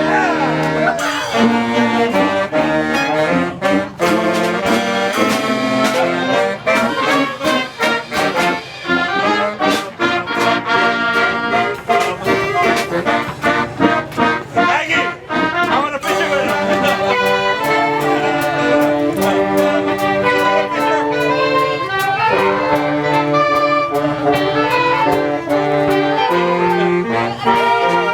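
A band of brass and wind instruments, with trombones, trumpets and saxophones, plays a lively tune, with drum strikes thickest through the middle.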